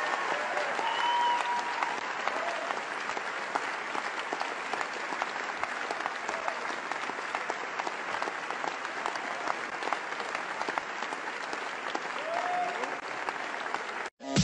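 Large audience applauding, a dense continuous clapping, with a few faint voices in the crowd; it cuts off suddenly near the end.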